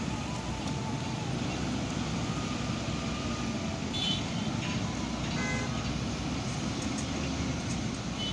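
Steady traffic noise of vehicles running along a highway, a continuous low rumble, with a few brief high tones near the middle.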